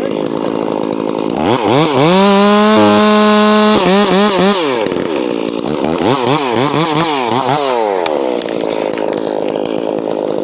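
Two-stroke chainsaw running during the back cut on a maple. It idles, is throttled up to a steady high pitch for about two seconds, then its revs swing up and down several times before dropping back to a lower, steadier run near the end.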